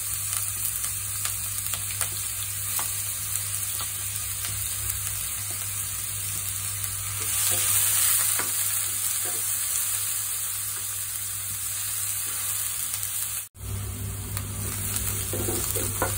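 Chopped onion sizzling in hot oil in a non-stick frying pan, stirred with a wooden spatula that scrapes lightly on the pan. The sound cuts out for an instant about thirteen seconds in.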